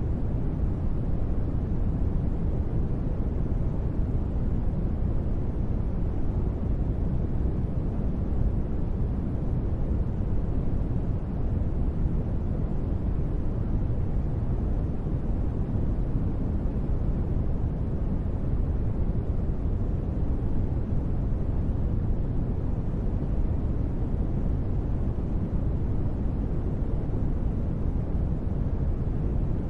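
Steady, low, even noise with no tones and no changes, heavy in the bass and thin in the highs: a synthesized ambient noise bed.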